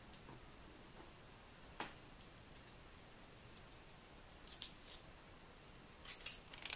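Faint crinkling and rustling of thin aluminium foil and card stock being handled, with a single sharp click about two seconds in and short bursts of crisp crackling near the end.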